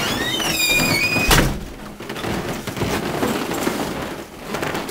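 A door hinge squealing with a rising, then steady whine as the door swings, followed by a single sharp bang about a second and a half in, then soft rustling.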